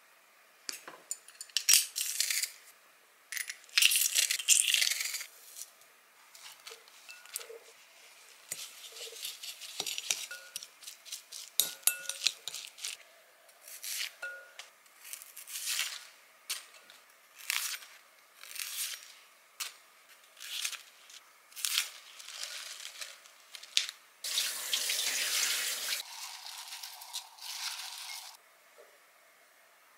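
Food-prep sounds: many short, crisp snaps and tears as spring cabbage (bomdong) leaves are split apart with a small knife. Near the end comes a longer rustling as the leaves are tossed by hand with seasoning in a glass bowl.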